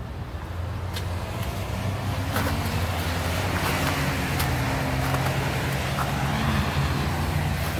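Road traffic: a vehicle engine's low, steady rumble with tyre hiss that swells toward the middle and fades again as a vehicle goes by.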